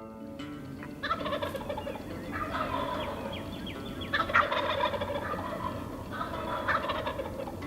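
Wild turkey gobblers gobbling, about four gobbles a second or two apart.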